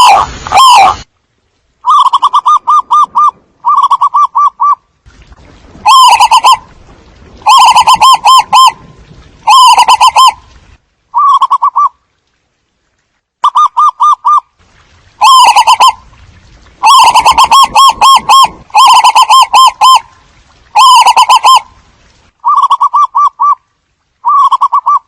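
Zebra doves cooing: short bursts of rapid, rippling notes, each about a second long, repeated a dozen or so times with brief pauses, played as a lure call to draw in a flock.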